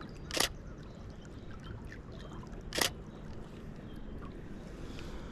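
A Canon Rebel T7i DSLR shutter fires twice, two short crisp clacks about two and a half seconds apart, over a steady low rush of lake waves.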